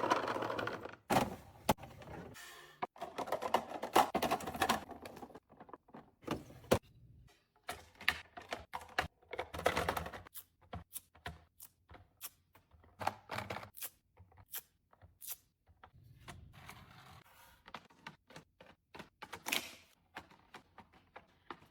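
Fridge contents being handled: irregular sharp clicks, taps and knocks of containers and items being picked up and set down, with a few short stretches of rustling, scraping noise.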